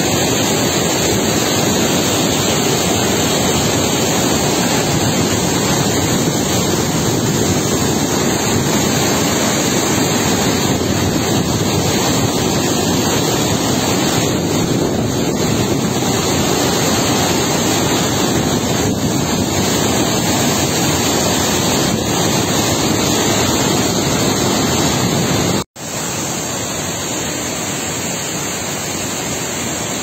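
Steady rush of a waterfall and stream in flood, swollen by heavy rain and snowmelt. The sound cuts out for an instant about 26 seconds in and then goes on a little quieter.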